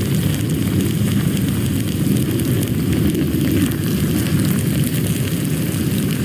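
Steady low rumbling noise with faint crackling throughout, typical of an outdoor cooking fire with wind on the microphone.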